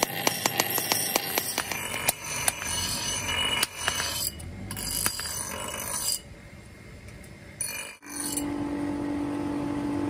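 Hand hammer striking hot leaf-spring steel on the anvil, a run of blows that thins out over the first couple of seconds. Then steel pieces and tongs clink and scrape against each other. Near the end, after a sudden break, comes a steady hum from the forge's air blower.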